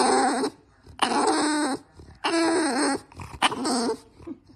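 An English bulldog vocalizing in four short pitched calls, each about half a second long and about a second apart.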